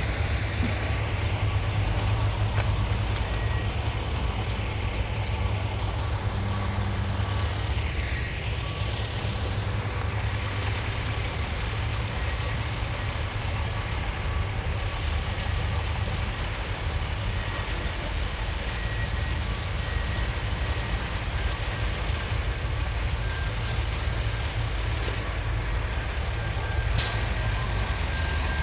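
A heavy engine running with a steady low rumble, with a few faint thin tones above it.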